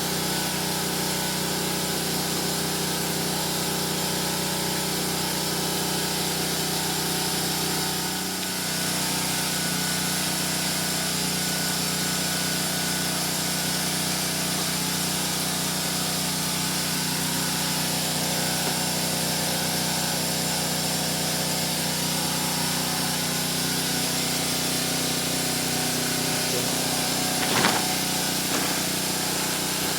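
Steady machine noise with a constant hum, like a motor running continuously, unchanged throughout. A single sharp knock near the end.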